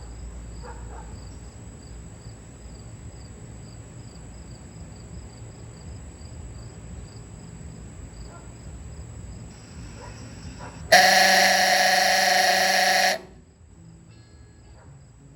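Electric oooga horn, set off by a timer, sounds one loud, steady blast of about two seconds, starting and stopping abruptly about eleven seconds in.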